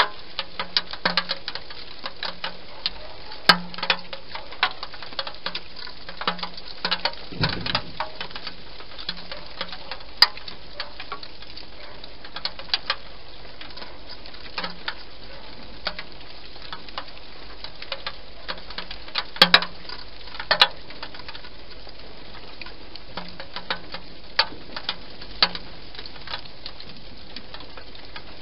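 Hedgehog eating inside a plastic feeding box: irregular clicking chews, sometimes in quick runs, over a steady background hiss.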